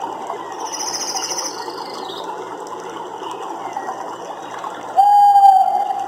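Nature recording of a dense, continuous chorus of calling animals. A short, high trilling call comes about a second in, and a loud call held at one pitch for about a second comes near the end.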